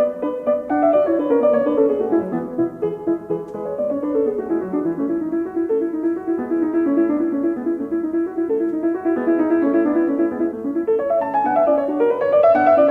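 Piano music: fast runs of notes sweeping downward, then a repeating figure of notes in the middle register, with the downward runs returning near the end.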